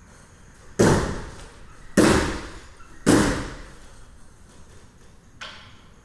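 Salmon ladder bar slamming into its metal rungs three times, about a second apart, each clang ringing out in the large hall, as a climber hops it up the ladder; a fainter knock follows near the end.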